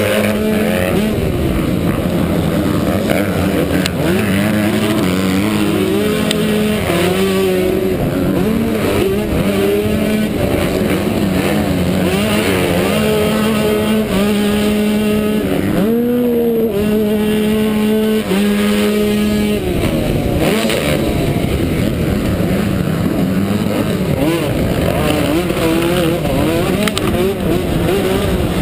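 Yamaha YZ125 two-stroke motocross engine at race pace, revving hard and stepping up and down through the gears, heard from onboard with wind rushing over the microphone.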